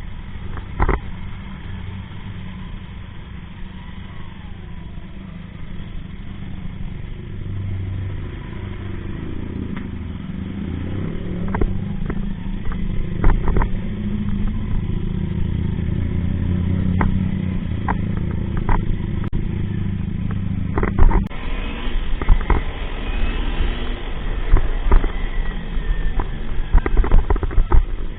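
Kawasaki parallel-twin motorcycle engine running on the road, its note rising and falling. About 21 seconds in the sound turns suddenly louder and rougher, with frequent sharp knocks.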